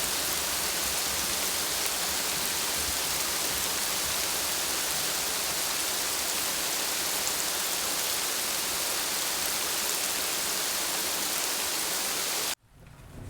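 Steady, even hiss of rain falling, which cuts off suddenly about a second before the end.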